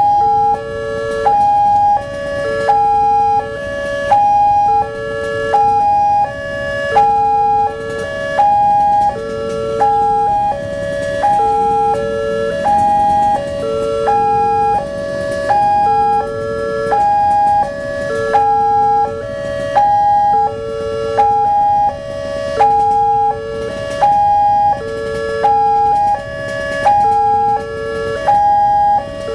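Indonesian railway level crossing's electronic warning alarm sounding, a loud three-note electronic tone pattern repeating about every second and a half: the signal that a train is approaching and the crossing barriers are closed.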